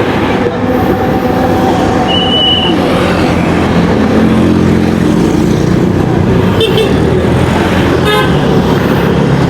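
Yamaha XMAX 250 scooter's engine running with road and traffic noise while riding, with a short high horn toot about two seconds in.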